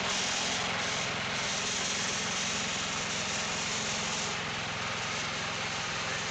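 Wood-Mizer portable band sawmill running steadily, its engine droning with a high hiss over it that eases slightly about four seconds in.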